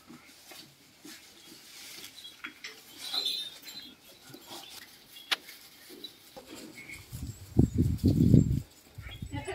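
Scattered light taps and rustling, with a louder low rumble and a few thumps from about seven to eight and a half seconds in.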